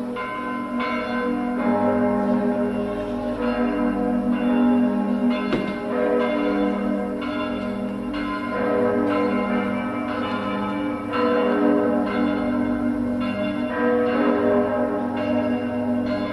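Several church bells pealing together, each stroke ringing on over the next: the city's bells rung at the hour of the bombing in remembrance.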